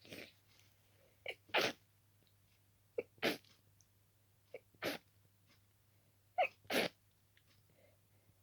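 A person sneezing repeatedly in a fit: four sneezes about a second and a half apart, each a short sharp catch followed by a louder burst. It is an itchy-nose sneezing fit that the sneezer puts down to dust from dusting the room.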